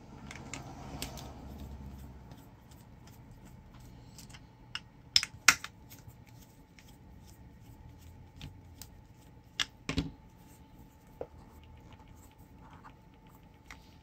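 A screwdriver working the screws out of a clear plastic hospital-grade power plug, with scattered light clicks and scrapes of metal on plastic. A few sharper clicks come about five seconds in and again around ten seconds in as the housing is handled and opened.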